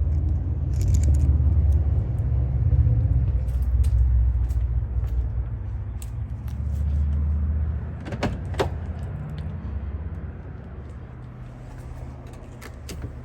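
2008 Jaguar XJ running, a steady low rumble that eases off after about eight seconds, with scattered clicks and a jingle of keys over it.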